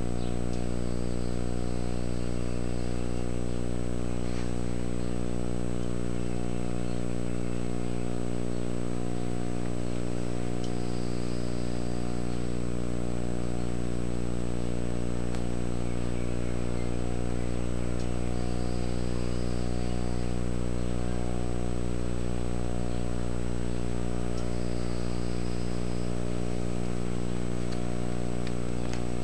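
A steady low buzzing hum that does not change in pitch or loudness.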